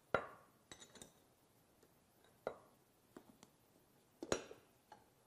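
Sharp metallic clinks and knocks of a steel wrench and loose metal parts handled against a metal diaphragm pump and set down on a wooden workbench while a diaphragm nut is loosened. They are scattered and irregular, the loudest just after the start and about four seconds in.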